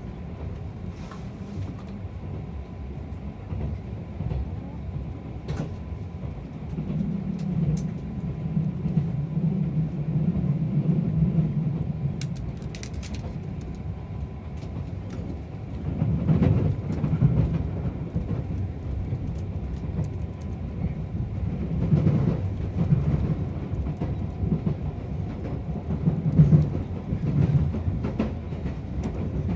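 Limited express electric train running on the line, heard from inside the carriage: a steady low rumble of wheels on rail, with clacks over rail joints and a few louder swells of wheel noise about halfway through and again near the end.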